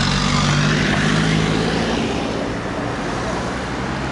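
Street traffic: a motor vehicle passing close by, its engine running with a steady hum and tyre noise, loudest in the first two seconds and then fading.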